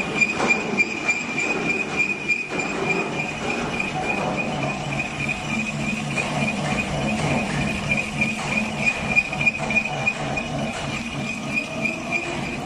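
XDT50 portable line boring machine running, its boring bar cutting with a steady high-pitched whine over a pulsing low rumble and uneven clatter.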